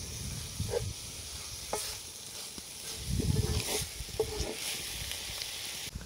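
Diced chicken and mushrooms sizzling steadily in a hot cast-iron skillet, with a few scrapes and knocks of a wooden spatula stirring them against the pan.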